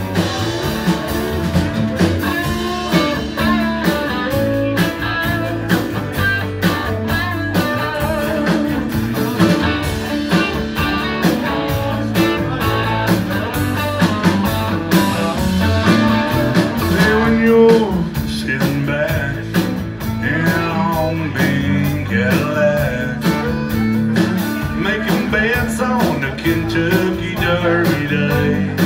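Live country-rock band playing, with acoustic and electric guitars, fiddle and drums.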